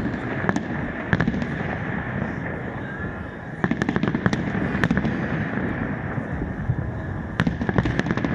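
Fireworks exploding in clusters of sharp bangs and crackles, about a second in, again between about three and a half and five seconds in, and near the end, over steady background noise.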